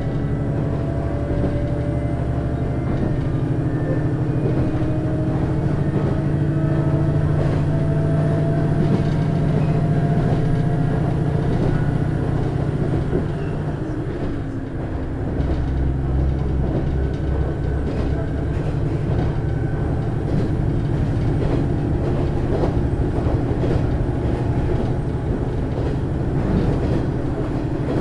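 JR East KiHa 110 diesel railcar's DMF14HZA engine pulling the train, heard from a seat inside the car. Its note rises slowly for the first dozen seconds and eases off briefly about fourteen seconds in, then it pulls again, over the running noise of the wheels on the rails.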